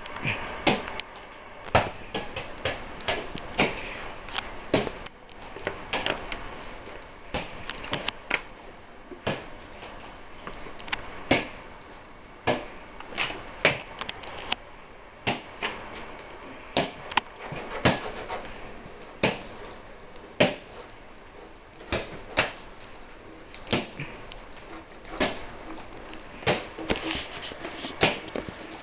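A small ball being thrown and caught by hand back and forth, each catch a sharp slap, dozens of them at uneven intervals about a second apart.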